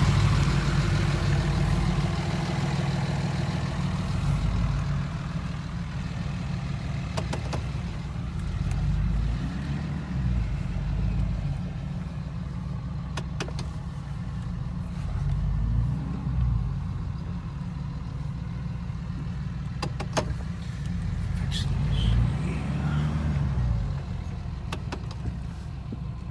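Ford F-350 Power Stroke diesel pickup engine running at low speed while backing up, swelling briefly in revs a few times, with a few sharp clicks.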